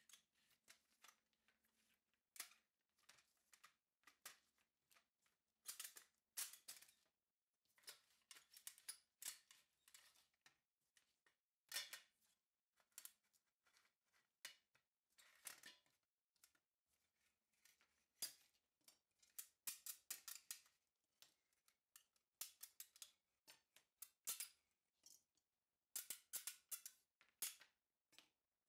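Faint, irregular metallic clicks, taps and short scrapes as painted steel doll-crib rails and slats are worked apart by hand on a workbench.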